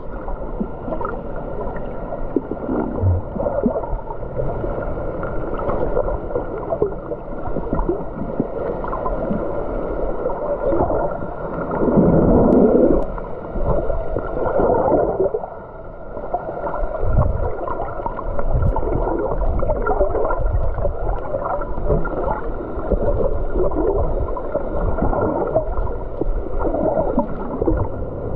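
Muffled water sloshing and gurgling around a snorkeller's camera in the sea, with a louder surge about twelve seconds in.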